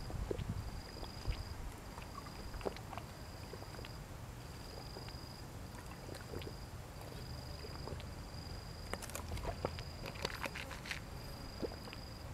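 Faint scattered clicks of someone eating, thickest about nine to ten seconds in. Behind them an insect chirps in steady high pulses a little over a second apart.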